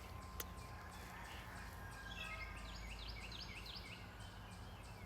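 Distant songbirds singing over faint background noise, with a quick run of about six repeated short rising notes a little past halfway and a single sharp tick near the start.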